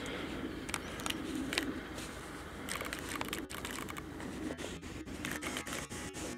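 Heritage railway passenger coach rolling slowly along the track, a steady low rumble overlaid with spells of quick clicking and rattling, a few about a second in and many from about three seconds in.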